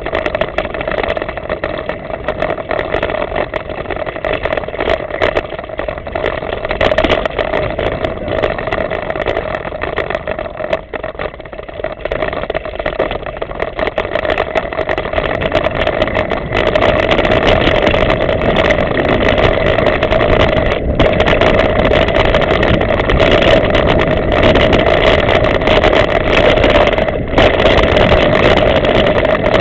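Wind rushing over a bike-mounted camera's microphone, with mountain bike tyres running on a dirt forest trail and scattered knocks and rattles from bumps. The noise gets louder a little past halfway through.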